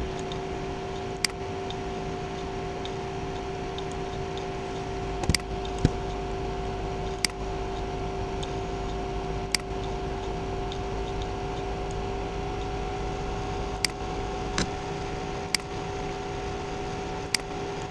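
Computer mouse clicking about ten times at irregular intervals over a steady electrical hum.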